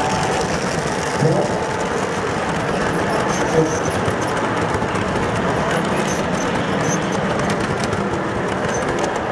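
Model freight train cars running past on the layout track close by, a steady rumble of wheels on rail.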